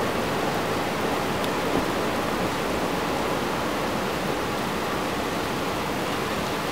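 Steady rain falling, an even, unbroken hiss with no single drops or gusts standing out.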